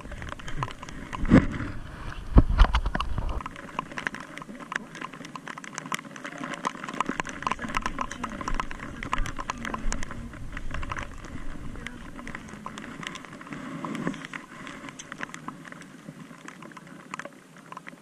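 Raindrops pattering close to the microphone, a dense irregular ticking. Two low thumps come in the first few seconds.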